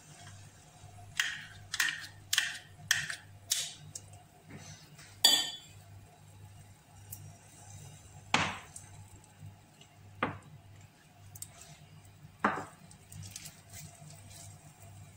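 Kitchenware clinking and knocking against a frying pan as pancake batter is poured in and the pan is handled: a quick run of about five sharp taps in the first few seconds, a loudest clack about five seconds in, then three single knocks spread out. A faint steady low hum runs beneath.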